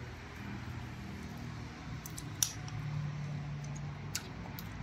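Wooden chopsticks clicking a few times against a stainless steel bowl, over a low steady hiss.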